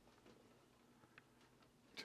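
Near silence: faint room tone with a few faint, irregular ticks, the clearest about a second in.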